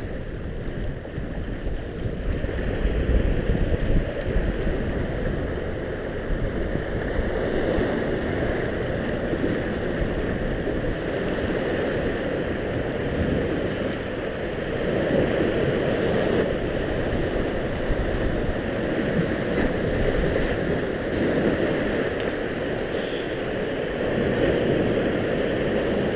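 Sea surf washing and breaking against shoreline rocks, a steady rush of water with wind buffeting the microphone.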